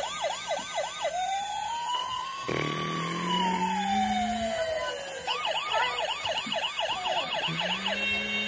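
Battery-powered toy fire truck's electronic siren: a fast warble of about three or four cycles a second, changing about a second in to one slow wail that rises and then falls, and back to the fast warble after about five seconds. A lower tone rises underneath twice.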